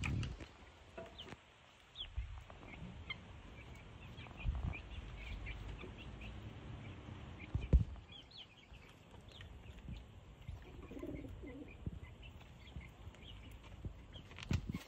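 A hen clucking in a backyard pen among many short, high bird chirps, over a low rumble from wind or handling and one sharp knock about halfway through.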